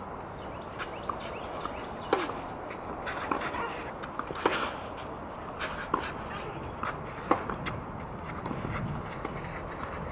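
Tennis rally: racquets striking the ball in sharp single hits, one about every one and a half seconds, with lighter footfalls and scuffs in between.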